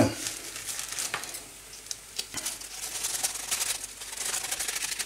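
Scissors cutting through a stack of oven-stiffened baking parchment: repeated crisp snips, with the stiff sheets crackling and rustling as they are handled.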